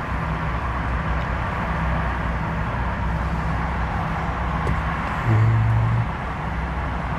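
Inside a Ford Bronco Raptor's cabin while driving: a steady drone of engine, tyre and road noise, with a brief louder low tone about five seconds in.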